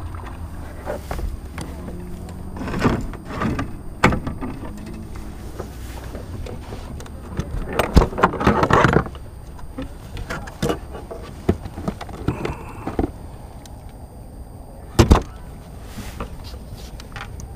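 Scattered clicks, knocks and rustling from handling a just-landed largemouth bass and gear aboard a plastic fishing kayak, with a louder clatter about eight seconds in and a sharp knock near the end, over a low steady rumble of wind.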